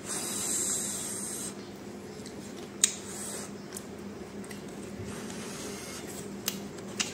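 Close-miked eating of a breaded chicken finger: a burst of crisp, hissy crunching at the start, then a sharp crack about three seconds in and another near the end, over a steady low hum.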